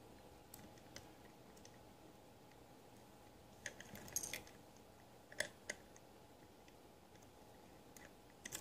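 Light metallic clicks and scrapes of a steel lock pick and tension wrench working the pins of an Abus Bufo lock: scattered ticks, a cluster of clicks about four seconds in, and the sharpest click about five and a half seconds in. The picker is probing a pin that won't set.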